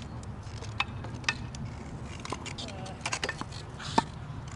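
Tennis ball struck by a racket: one sharp pop about four seconds in, the loudest sound. Several fainter knocks come before it, about a second in and around three seconds in.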